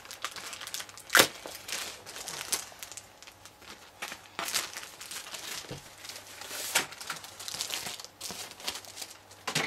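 Clear plastic bag crinkling and rustling as it is handled and the instruction manual is slid out of it, with a sharp crackle about a second in and further bursts of crinkling through the rest.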